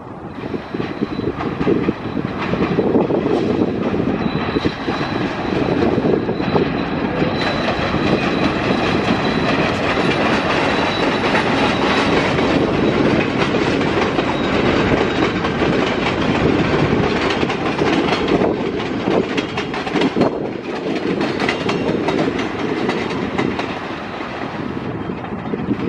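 A train passing close by, its wheels clattering over the rails. The sound swells about two seconds in, holds steady for most of the stretch, and eases slightly near the end.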